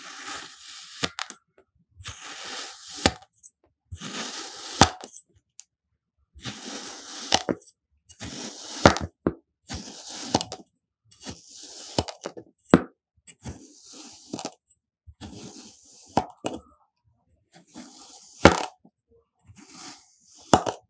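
A stainless-steel kitchen knife cutting slice after slice through a pressed block of kinetic sand, about ten cuts, roughly one every two seconds. Each cut is a crunchy, gritty hiss of about a second that ends in a sharp tap as the blade meets the table.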